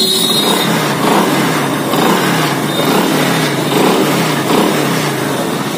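Freshly rebuilt Hero Super Splendor 125 cc single-cylinder four-stroke engine, just tuned at the carburettor, revved with about five quick throttle blips, roughly one a second, dropping back between each.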